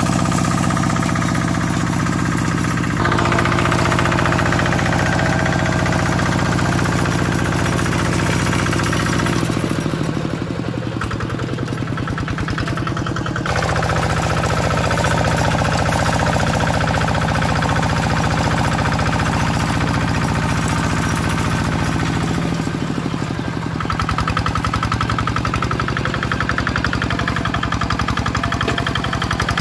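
Kubota RD65 single-cylinder diesel engine on a two-wheel hand tractor, chugging steadily under load while the tractor plows a flooded rice paddy. Its note shifts a few times along the way.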